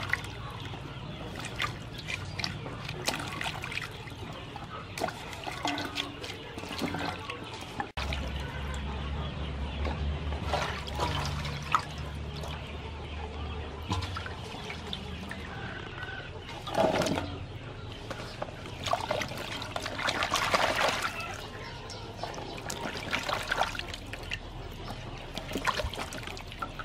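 Vegetables being washed by hand in water in a large metal basin: water sloshing and splashing, with many light knocks as cucumbers and limes bump against the basin.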